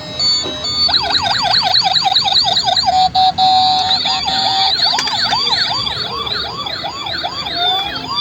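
Toy emergency vehicle's electronic siren. A short beeping tune stops about a second in, then a fast yelping siren runs at about six rises a second, holds one steady tone briefly around three seconds in, and goes on with slower sweeps at about three a second.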